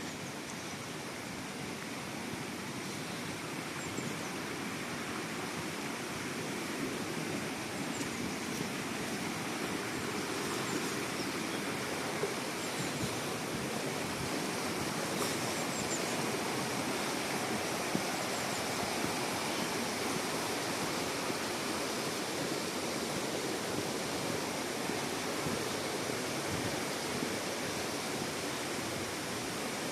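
Rushing water of a waterfall: a steady, even roar of falling water that grows a little louder over the first ten seconds or so, then holds.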